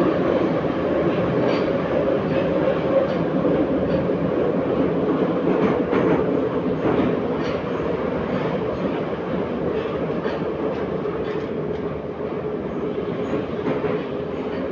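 Minsk metro 81-714.5 car heard from inside while running: a steady rumble and rattle of the running gear with a humming tone, and scattered sharp clicks of the wheels over rail joints. It grows a little quieter in the second half.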